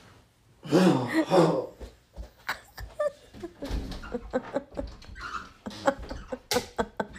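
A loud, short vocal cry about a second in. Then a string of knocks, thumps and rustles as someone moves about the room and handles a closet door.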